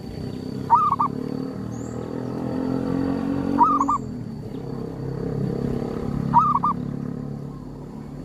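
Zebra dove (perkutut) cooing: three short runs of quick, rolling coo notes, about three seconds apart. Under them a low drone swells and fades.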